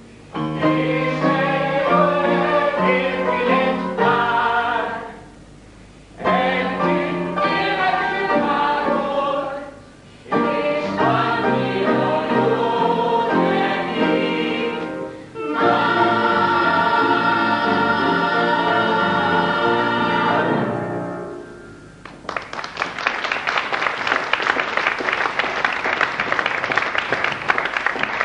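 A stage musical number: voices singing together with band accompaniment in phrases broken by short pauses, ending on a long held chord. About six seconds before the end, audience applause takes over.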